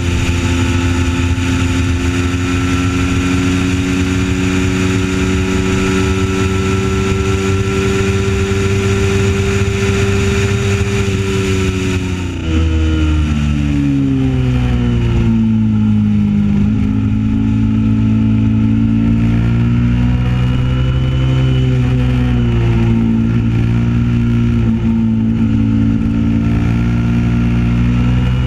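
Kawasaki Ninja 650 parallel-twin engine under way on the road, with wind rushing past the microphone. The revs rise slowly while cruising, drop sharply about twelve seconds in, then rise and fall repeatedly through a run of bends, and the wind noise fades as the speed comes down.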